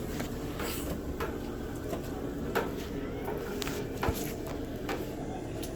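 Scattered light clinks and taps of metal being handled, half a dozen in all, over a steady low hum.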